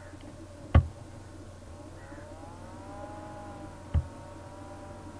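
Two sharp clicks, one about a second in and one about four seconds in, over a steady low hum: computer mouse clicks advancing the lecture slides. In between, a faint, drawn-out tone rises and falls in the background.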